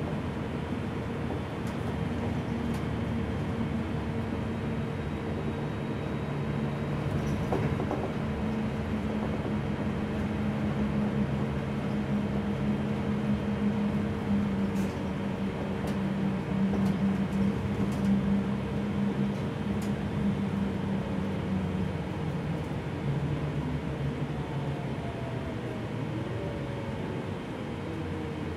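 Gillig low-floor city bus heard from inside the cabin while under way: engine and drivetrain running under road noise, with a steady hum throughout. The engine note drops off about two-thirds of the way through, and falling whines follow near the end.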